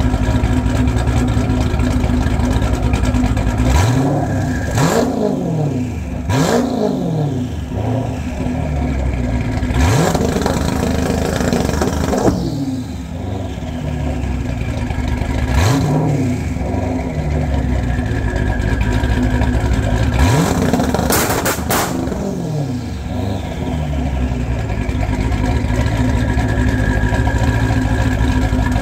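Twin-turbocharged Dodge Charger V8 idling, then revved in about half a dozen quick blips onto a newly fitted 2-step launch limiter. The blips bring sharp exhaust pops and bangs, loud enough for a neighbour to take for gunshots, with a rapid string of bangs about twenty seconds in. The engine then settles back to a steady idle.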